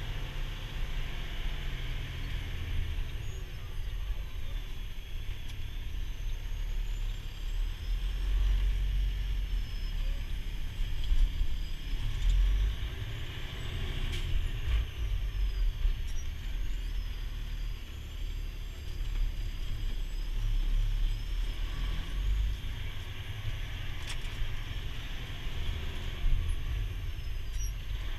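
Heavy-duty tow truck's diesel engine and road noise heard inside the cab while driving, a deep steady rumble that swells and eases a few times with the throttle.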